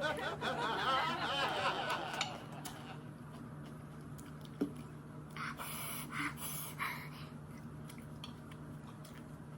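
Someone breathing hard through the mouth while eating raw green chilli, with a hissing breath out lasting about a second and a half past the middle, to ease the burn.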